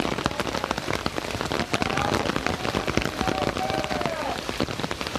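Heavy rain falling, with a dense, steady patter of drops striking close by. A faint distant voice comes through the rain about halfway in.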